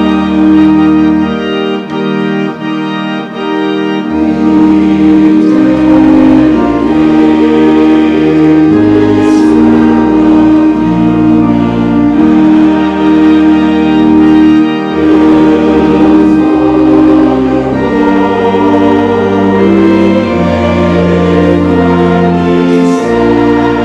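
Choir singing with organ accompaniment in sustained chords, the bass notes moving every second or two.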